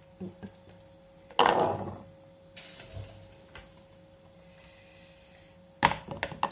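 Cooked chickpeas dropped from a skimmer through a canning funnel into a glass jar: a short clatter about a second and a half in, a sharp tap near the end, then another clatter starting just before the end.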